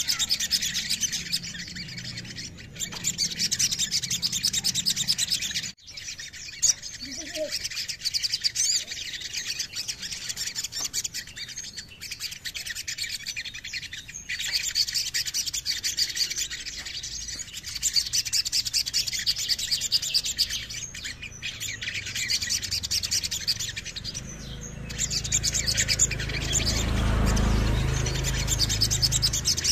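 Male olive-backed sunbird (sogon) singing long runs of rapid, high-pitched twittering trills with short breaks. Near the end there is a low fluttering rumble as the bird moves about the cage.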